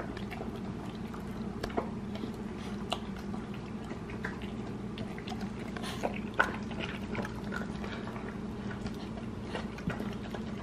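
Yorkshire terrier eating canned wet dog food with freeze-dried toppers from a ceramic bowl: irregular wet smacks and chewing clicks over a steady low hum.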